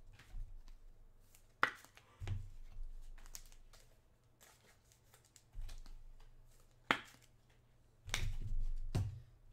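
Trading cards and their packaging being handled on a table: scattered sharp clicks and rustles, with a few dull knocks.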